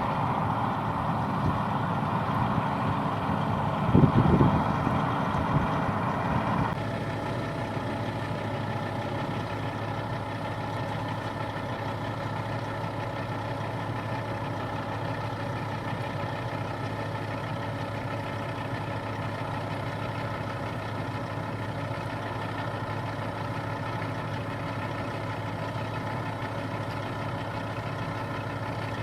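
Diesel engine of big harvest machinery running steadily with a constant drone. A short loud low thump comes about four seconds in. A little before seven seconds in the sound changes abruptly: a louder hissing layer drops away, leaving a quieter, steady engine drone.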